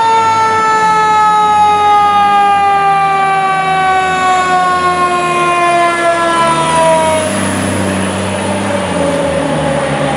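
Fire truck siren: one long, loud tone whose pitch falls slowly throughout, over the truck's diesel engine changing speed underneath.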